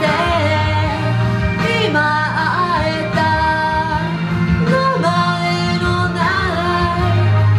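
A woman singing a Japanese song in a sustained melody, holding long notes with some vibrato, over a steady instrumental backing.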